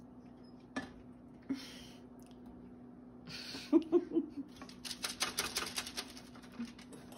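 Metal spoons clicking and scraping against each other and the mixing bowl while chocolate chip cookie dough is scooped and dropped onto a parchment-lined baking sheet. A few single clicks come first, a louder clatter comes about halfway through, and then a fast run of scraping clicks follows, all over a faint steady hum.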